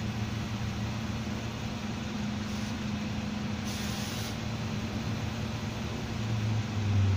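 Cabin noise of a Karosa B 961E articulated city bus on the move: its diesel engine drones steadily under road noise. There is a short hiss of air about four seconds in, and the engine note grows louder near the end as it pulls harder.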